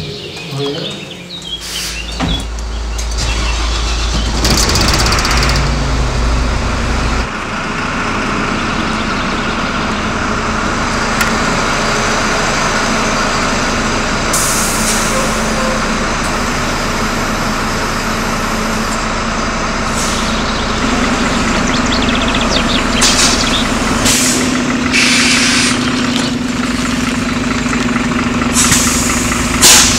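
City bus engine running steadily with a low hum as the bus moves, broken by several short hisses of compressed air from the bus's air system, the last one just before the end.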